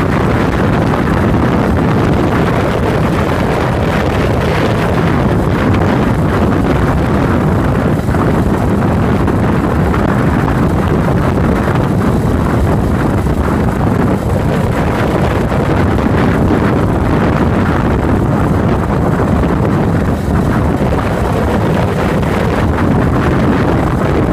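Yamaha SRX400 motorcycle riding at steady speed: its air-cooled single-cylinder engine running under heavy wind rush on a phone microphone mounted beside the fuel tank.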